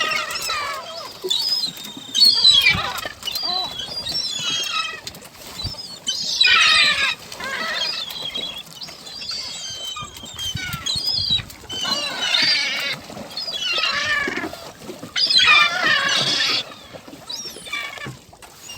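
A flock of gulls calling, many overlapping squealing calls that come in bouts, with several louder bursts along the way.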